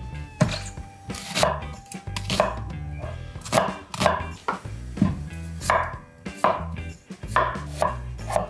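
Crisp, crackling crunches of someone biting and chewing a crispy Korean chive pancake (buchu-jeon), about two sharp crunches a second.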